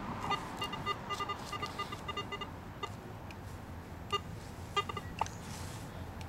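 Metal detector giving a quick run of short, high beeping target tones as its coil sweeps over a freshly dug hole, with a few more beeps about four and five seconds in. The detectorist takes these signals for more metal still in the hole.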